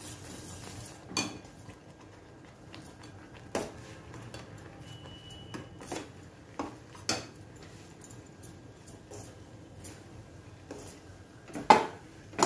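Spoon stirring a thick jaggery-syrup and flour dough in a steel pot, with irregular knocks and scrapes against the pot, the loudest near the end.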